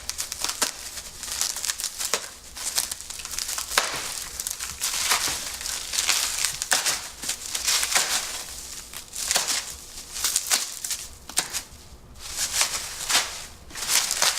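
Plastic bubble wrap being pulled and peeled off a scooter's handlebars by hand: continuous crinkling and rustling with many sharp crackles.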